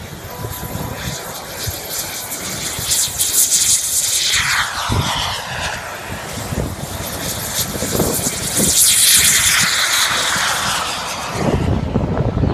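RC model jet's turbine engine flying past at speed twice, a loud rushing noise whose pitch drops as it goes by, about four seconds in and again about nine seconds in.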